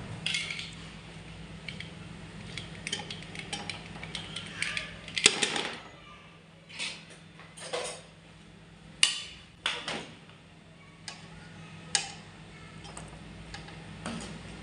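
A spoon clinking and scraping against a metal cooking pot as rice and chicken korma are layered for biryani: irregular sharp clinks and scrapes a second or so apart, the loudest about five seconds in and again about nine seconds in, over a low steady hum.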